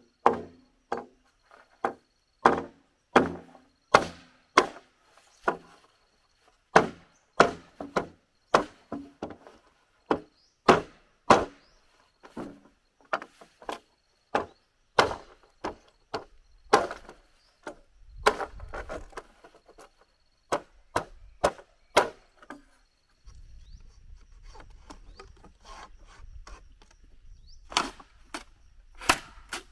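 A knife chopping into green bamboo poles: a run of sharp woody knocks, about one or two a second, with some rubbing and scraping between them. About two-thirds of the way through, a steady low rumble comes in, and near the end a couple of hard knocks as the top of an upright bamboo pole is struck from above.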